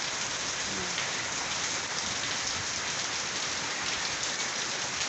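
Heavy rain pouring down steadily: a dense, even hiss with no letup.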